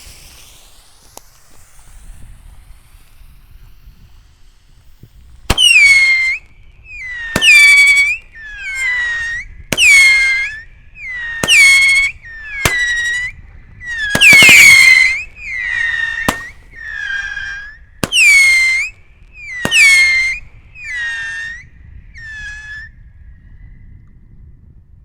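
Fire Hawk 'Fox Howl' 12-shot whistle cake firing after a faint fuse hiss. Each shot is a sharp launch pop followed by a loud whistle about a second long that drops in pitch and then holds. About a dozen come in a row, roughly one every second and a half, and the last few are fainter.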